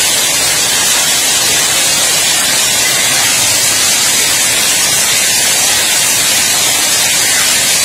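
Heavy hailstorm: hailstones pelting pavement and the surfaces around them, a loud, dense, unbroken hiss of impacts, strongest in the high range.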